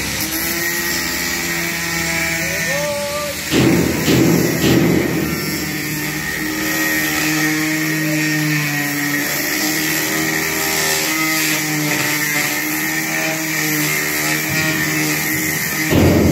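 Angle grinder with a thin abrasive cut-off disc cutting through sheet metal: a steady motor whine over the hiss of the disc biting into the metal. It grows louder around four seconds in and again near the end as the disc is pressed harder into the cut.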